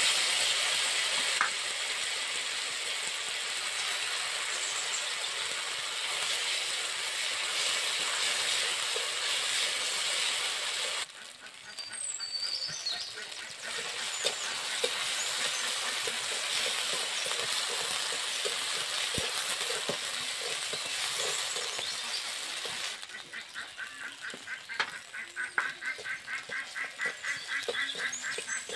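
Spice paste frying in hot oil in an aluminium karai, a steady sizzle as a metal spatula stirs and scrapes it; the sizzle drops off briefly about eleven seconds in. In the last few seconds a pulsing, repeated call comes in over it, ducks quacking.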